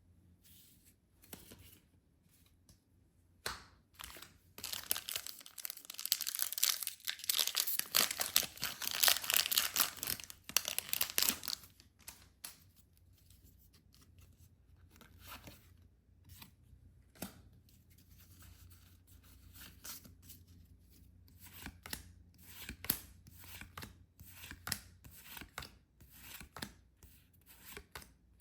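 Packaging being torn open, a dense ripping for about seven seconds, followed by scattered light clicks and rustles of handling.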